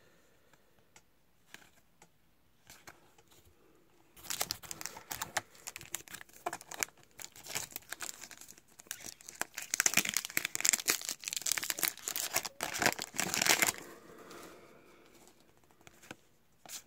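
A Topps WWE Then Now Forever 2018 trading card pack's wrapper being torn open and crinkled. It starts about four seconds in after a few faint handling clicks and stops a few seconds before the end.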